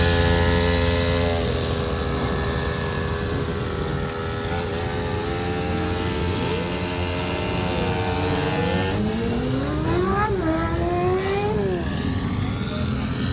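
Motorcycle engines. A loud steady engine note fades away in the first second or two. Later, engines rev up and down several times, with rising and falling pitch about nine to twelve seconds in.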